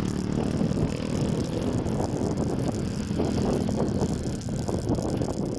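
Motorbike engine running steadily while riding along a street, with wind and road noise.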